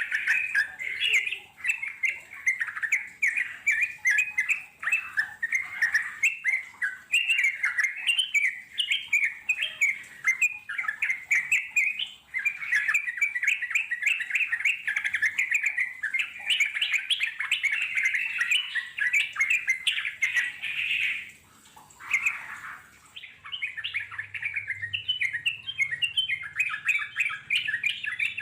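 Sooty-headed bulbuls singing in the wild: a long, rapid run of bubbling, rolling chatter phrases, broken by a brief pause about 22 seconds in.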